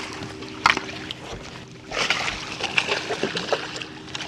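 Water splashing and sloshing as a landing net is scooped through the water beside a boat and bass thrash in it, with a sharp knock early on and a faint steady hum underneath.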